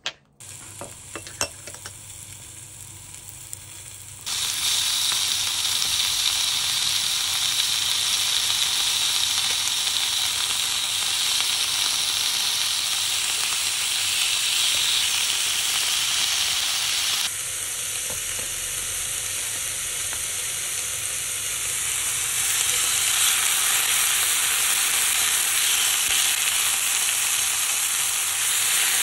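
Slices of raw pork frying in a hot nonstick pan: a steady, loud sizzle that starts abruptly about four seconds in, after a few light clicks, and grows louder again near the end.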